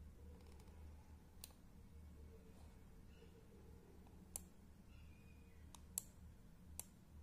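About five sharp, scattered computer mouse clicks over a faint, steady low hum.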